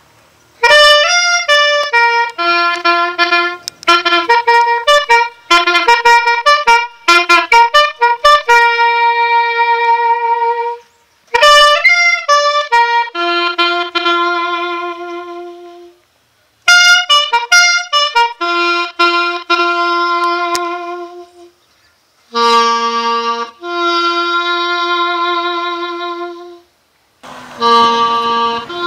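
A solo bugle call played in several phrases. Quick runs of notes alternate with long held notes, and there are short pauses between phrases.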